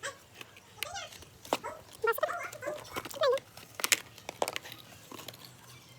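An animal whining in short calls that bend up and down in pitch, with a few sharp clicks between them.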